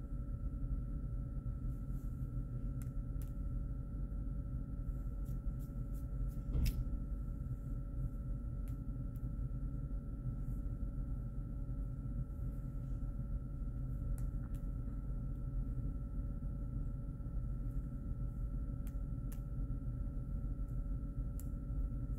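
Steady low room hum with a faint constant whine, broken by scattered soft clicks, one sharper click about six and a half seconds in.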